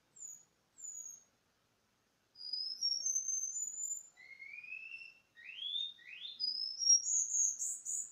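Cuban bullfinch (negrito) singing: two short high notes, then from about two seconds in a run of clear rising whistled glides, ending in higher, rapid notes.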